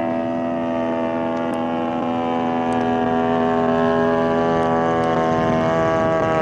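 DLE 55 single-cylinder two-stroke petrol engine of a large-scale RC Tiger Moth biplane running steadily in flight, a droning buzz that grows a little louder as the plane passes overhead, its pitch sagging slightly.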